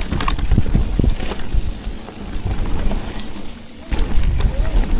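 Mountain bike riding fast down a dirt trail: a continuous rumble and rattle of tyres and frame with scattered knocks. The sound drops away briefly about three and a half seconds in, then comes back loud.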